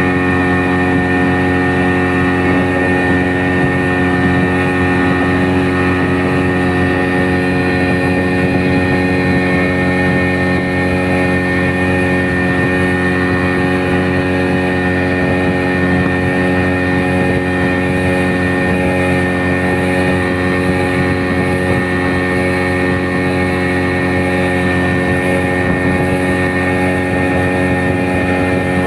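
A small boat's engine running steadily at one constant speed, with an even, unchanging hum.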